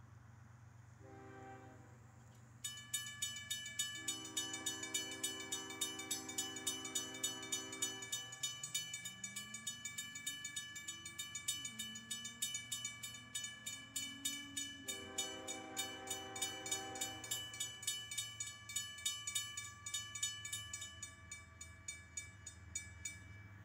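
Railroad crossing warning bell ringing with rapid, even strikes while the crossing gates come down, stopping near the end. Over it, the approaching CSX freight's locomotive horn sounds in the distance: a short blast, then two long blasts.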